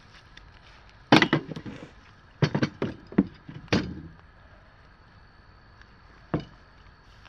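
A string of sharp knocks and clatters, in a cluster about a second in, another from about two and a half to four seconds in, and one more knock near the end.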